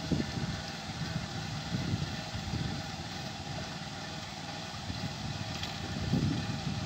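Small engine of a walk-behind rice transplanter running steadily while the machine plants seedlings in a flooded paddy.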